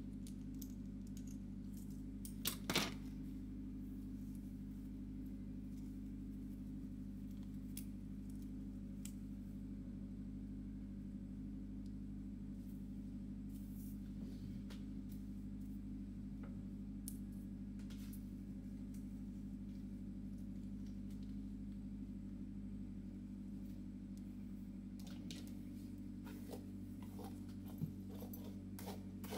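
A steady low hum underneath, with small clicks and rustles of a synthetic wig and its hair being handled: two sharper clicks about two and a half seconds in and a scatter of ticks near the end as the hair is brushed.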